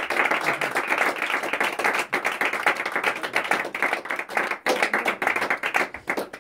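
A small audience claps and applauds with dense, irregular hand claps, which thin out and stop near the end.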